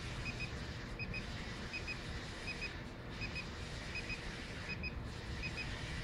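Vinmetrica SC-300 SO2 analyzer beeping in short double beeps, about one pair every three-quarters of a second, over a steady low hum. The beeping is the analyzer's endpoint signal in a sulfur dioxide titration: the beeps are counted, and more than 20 means the titration is finished.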